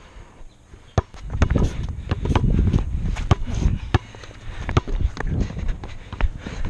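Basketball dribbled on an asphalt court: a string of sharp, unevenly spaced bounces, about ten in all. A low rumble runs under them in the first half.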